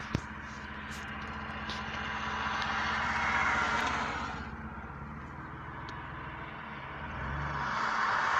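Vehicle noise heard from inside the cabin: a steady engine hum, with a rushing road noise that swells and fades twice, around three seconds in and again near the end. A sharp click just after the start.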